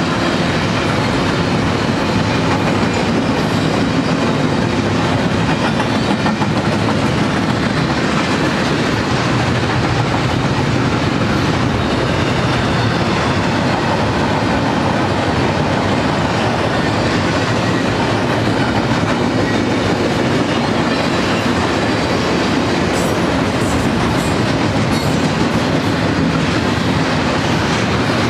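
Double-stack intermodal freight train's container-laden well cars rolling past close by: a loud, steady rumble and clatter of steel wheels on the rails.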